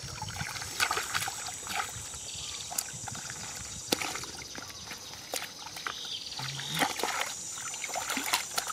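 Hands splashing and sloshing in shallow muddy water, groping through dead vegetation for fish, in irregular sharp splashes over a steady high-pitched hiss.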